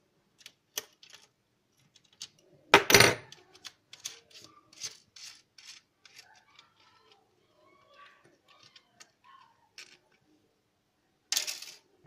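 Plastic housing of a TP-Link TL-WR1043ND router being prised apart by hand: a string of sharp clicks and ticks of plastic and metal, with a loud crack-like snap about three seconds in and another near the end.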